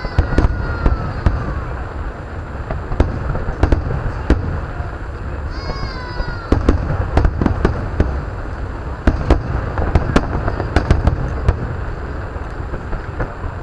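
Aerial fireworks bursting: many sharp bangs at irregular intervals over a low rumble, with a whistling tone falling in pitch near the start and again about six seconds in.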